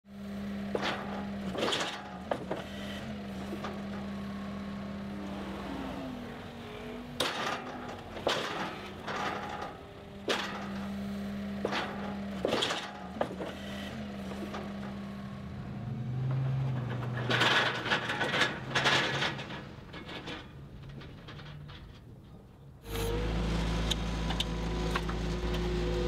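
Skid steer's diesel engine running at a steady pace while its grapple handles logs onto a wooden-decked steel trailer, with repeated sharp knocks and clanks of log and metal. Near the end the engine sound suddenly becomes louder and deeper.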